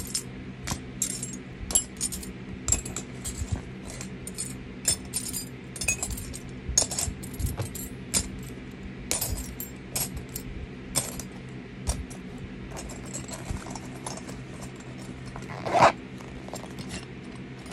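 Hands handling plastic packaging and small items: a run of quick, irregular crinkles and light clinks, with one louder rustle near the end.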